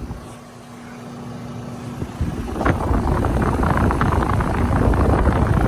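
Running Trane XR16 central air conditioner outdoor unit: a steady hum, then from about two and a half seconds in a loud rush of air from the condenser fan that holds to the end.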